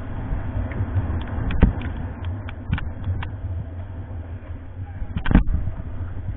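Motorcycle engine running at low speed, heard from a camera on the bike, with a low steady rumble and a few sharp knocks, the loudest about five seconds in.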